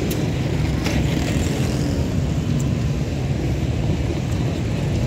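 Steady low rumble of road traffic at a busy level crossing, with a few light clicks.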